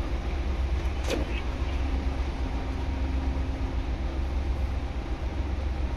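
Steady low machinery rumble with a faint steady hum, the ship's running machinery heard from inside the scrubber tower, with one brief sharp sound about a second in.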